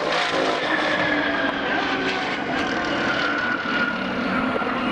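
Twin-turbo VR6-powered VW Golf GTI at speed on a half-mile run: a steady engine drone with a high whine that slowly falls in pitch.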